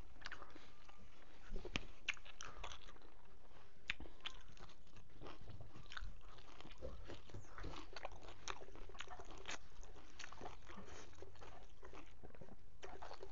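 A man eating a meal of rice, pork and greens by hand: chewing and crunching with many small wet clicks and smacks throughout.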